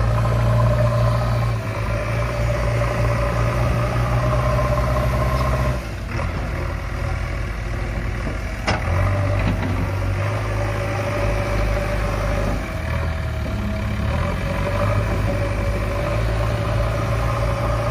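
Diesel engine of heavy machinery running steadily at low speed. Its note changes about a third of the way through, and there is one sharp knock about halfway.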